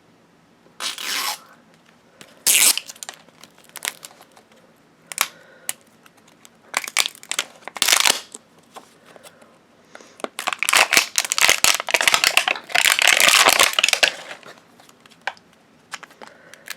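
Plastic wrapping of an LOL Surprise doll ball being torn and crinkled open. First come a few short rips, then a longer run of steady tearing and crinkling in the second half.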